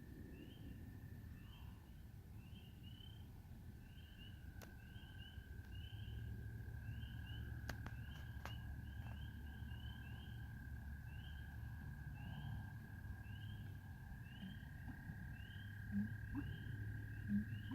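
Frogs calling in a swamp: a short chirp repeated about three times every two seconds over a steady high-pitched drone, with a low rumble underneath. Two short low knocks near the end.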